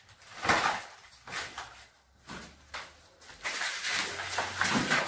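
Knocks and scraping of a plaster-and-brick wall section being handled over rubble, with a few separate thumps first and then a longer scrape near the end.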